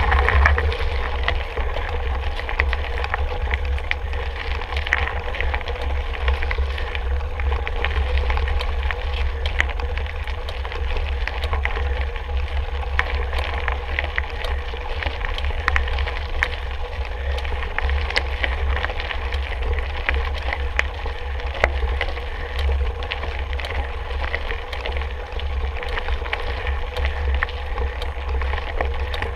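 A mountain bike being ridden, heard from a camera on the bike or rider: a steady low wind rumble on the microphone, with tyre noise and frequent small clicks and rattles from the bike over rough ground.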